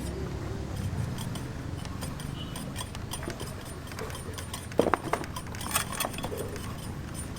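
A few light metallic clinks and taps, the loudest about five seconds in and another near six seconds, over a steady low rumble.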